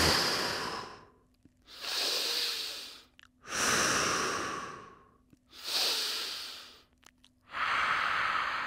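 A man's slow, deep yogic breathing: in through the nose and out through the mouth. Three long out-breaths with shorter, quieter in-breaths between them, one breath every two seconds or so.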